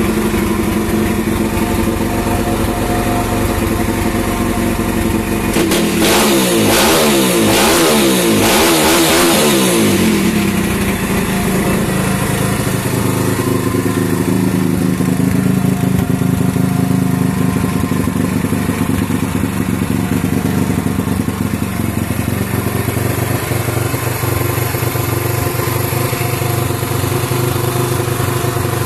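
Stomp 140cc pit bike's air-cooled single-cylinder four-stroke engine idling. It is revved up and down several times about six to ten seconds in, then settles back to a steady idle.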